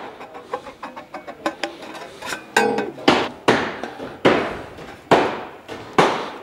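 Tin snips cutting sheet-metal roof flashing: a series of sharp, crunchy metallic snips, stronger and more regular from about two seconds in.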